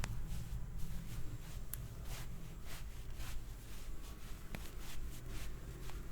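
Hands rubbing over a head or back in a massage: a run of soft rubbing strokes, about three a second, with a couple of sharper clicks, over a low steady hum.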